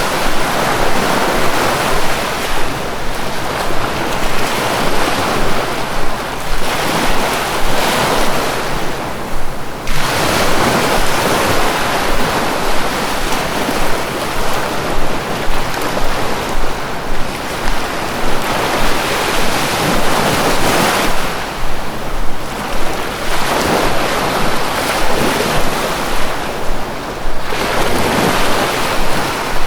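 Sea waves surging and washing in a continuous rush, swelling and easing every several seconds.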